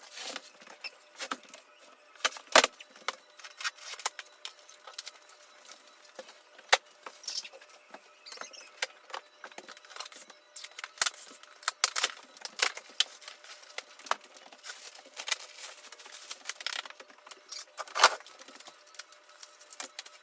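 Packaging being handled while couch sections are unpacked from their boxes: an irregular stream of crackles and clicks, with a couple of louder snaps.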